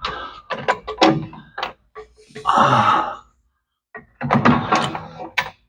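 Hand tools knocking and clinking on exhaust header bolts as the header is tightened down: irregular metal knocks and scrapes in short clusters.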